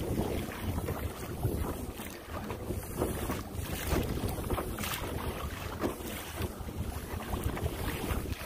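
Wind buffeting the microphone aboard a kayak at sea, a steady low rumble, with irregular splashes of water against the hull.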